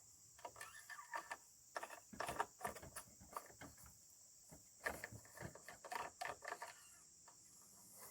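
Faint, steady high-pitched chirring of crickets, with scattered soft clicks and rustles of handling.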